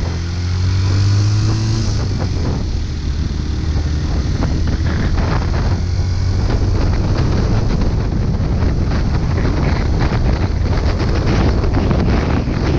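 Honda CB250N Superdream's parallel-twin engine running under way on the road, its pitch rising as it accelerates over the first two seconds, with wind buffeting the microphone.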